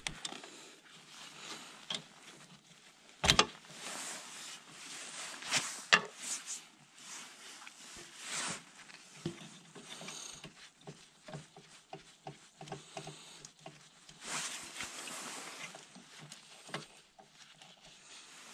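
Hand work on a lawn mower's carburettor: scattered clicks and taps of a ratchet and parts, with rustling of gloves and jacket, and two sharp knocks about three and six seconds in.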